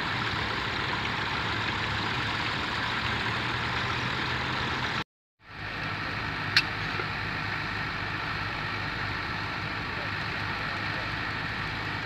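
Vintage tractor engines running steadily as they pull ploughs, a low even hum under a noisy field background. The sound cuts out for a moment about five seconds in, and a single sharp click is heard a second later.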